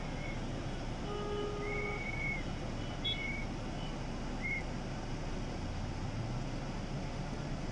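Steady street traffic noise. A short horn-like tone sounds about a second in, and a few brief high-pitched beeps come and go over the noise.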